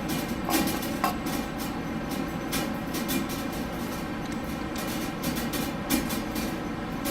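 Steady HVAC ventilation noise, with a few light knocks about half a second, one second and six seconds in.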